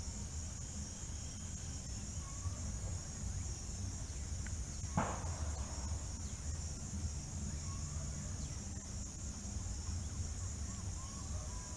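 Steady high-pitched insect trill over a low background rumble, with faint scattered bird chirps and a single sharp click about five seconds in.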